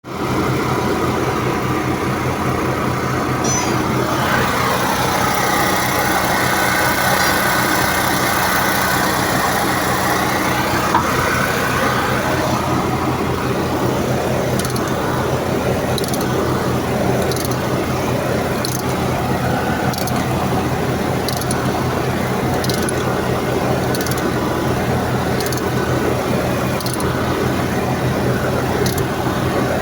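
Machinery running steadily with a low hum. A higher whine dips and rises again between about four and twelve seconds in. From about halfway, faint sharp ticks come roughly every second and a bit.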